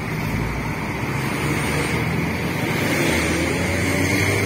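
Large bus's diesel engine running steadily at close range, with road traffic noise around it.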